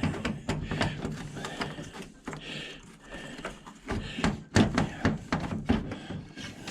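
Irregular clicks, knocks and clatter of hand tools and metal parts as a hot beverage dispenser is taken apart for scrap.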